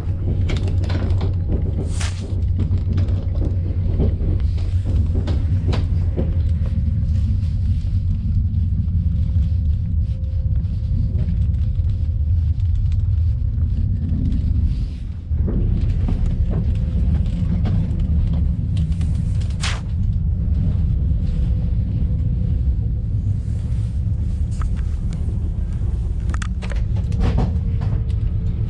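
Steady low rumble of a passenger train, with scattered clicks and knocks and a faint steady hum through it.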